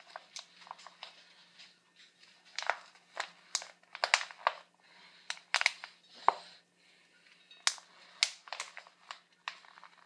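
Thin plastic water bottle crinkling in quick, irregular crackles as it is squeezed and handled, with cloth rustling, while a cloth is wrapped and fastened over the bottle's end.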